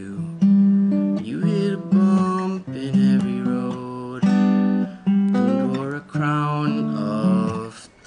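Acoustic guitar played solo, picked and strummed chords struck about once a second, each left to ring and fade before the next.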